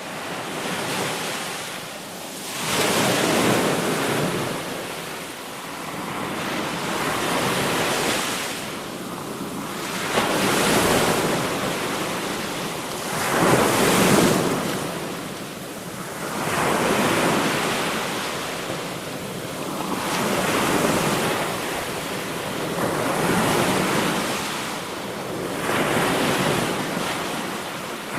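Sea waves breaking and washing in, one surge after another about every three seconds, the strongest about halfway through.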